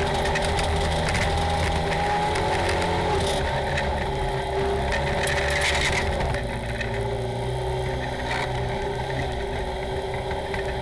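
Polaris RZR side-by-side's engine running steadily as it drives a rough dirt trail, heard from inside the cab, with scattered knocks and rattles from the chassis over the ground. The engine eases off a little about six seconds in.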